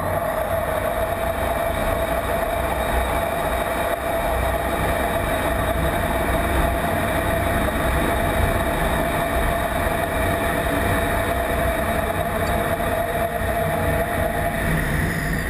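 F-16 fighter's jet engine and rushing airflow heard from inside the closed cockpit: a loud, steady noise with a constant whine over a low rumble.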